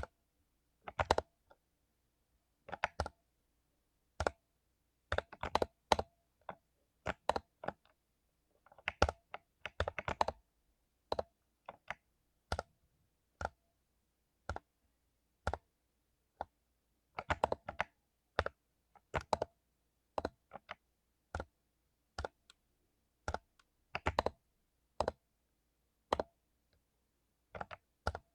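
Mechanical keyboard with lubed Cherry MX Silver linear switches being typed on: single keystrokes at uneven spacing, with quick runs of several keys about ten seconds in and again near the middle.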